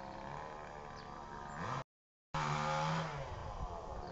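Chainsaw engine revving: the pitch climbs toward the middle, then the sound cuts out completely for about half a second. It comes back high and falls away near the end as the saw drops back.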